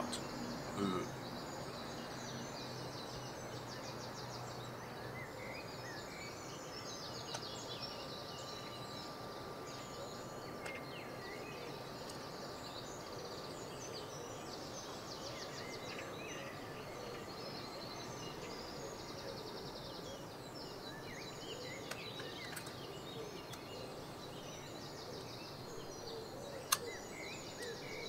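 A few faint clicks and scrapes of a blade cutting the metal retaining lugs off a small Bourns ACE-128 rotary encoder, over quiet room hiss. Birds chirp faintly in the background.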